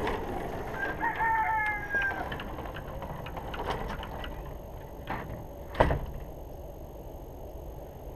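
A rooster crows once, about a second in, for about a second. A sharp knock follows near six seconds in.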